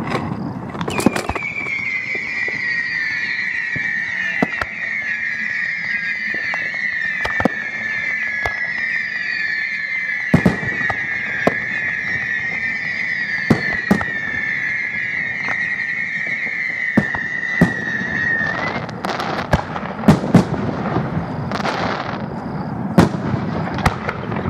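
Aerial fireworks display: sharp bangs of shells bursting throughout, and from about a second in a continuous high whistle that drifts slightly lower in pitch, then stops suddenly about three-quarters of the way through, followed by a quicker cluster of bangs near the end.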